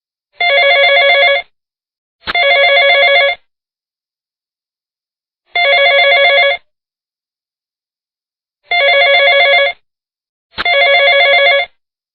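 Telephone ringing: five rings of about a second each, every ring a fast-warbling tone, with uneven gaps of silence between them.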